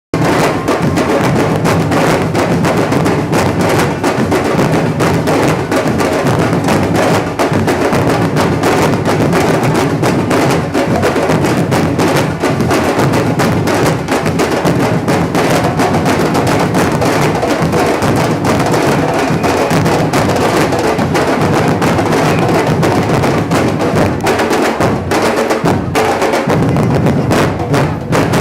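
Batucada-style percussion band playing a dense, continuous drum groove of many fast strikes, with bass drums under higher drums and wood-block-like clicks. The low drums drop out briefly about 25 seconds in.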